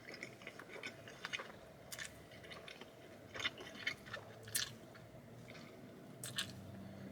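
A person chewing a mouthful of pepperoni stuffed-crust pizza close to the microphone, with scattered short, soft mouth smacks and clicks.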